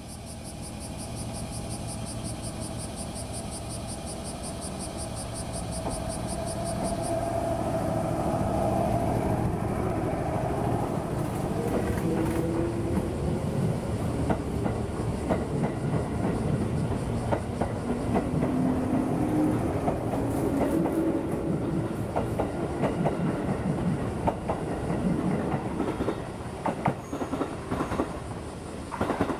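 JR 213 series electric train pulling out and accelerating past. A rapid, high pulsing tone stops about seven seconds in. The motors then whine, rising in pitch, with the wheels clacking over rail joints as the six cars go by.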